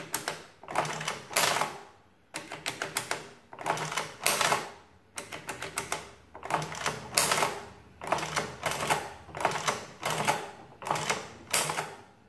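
Sundstrand adding machine being worked: number keys pressed and the side handle pulled, giving a run of about fifteen short bursts of mechanical clacking and ratcheting, roughly one a second, as the mechanism adds and prints.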